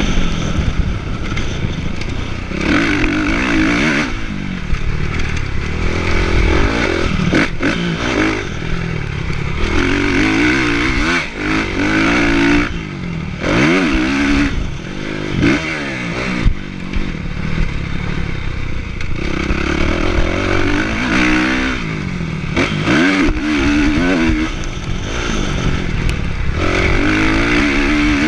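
Kawasaki motocross bike's engine, heard close from the rider's chest. It revs up through the gears and drops off again and again as the throttle is opened and closed around the track, with a few sharp knocks in between.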